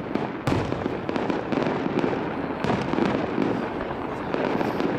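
Aerial fireworks display: a sharp shell burst about half a second in, then a dense run of crackling and popping bursts.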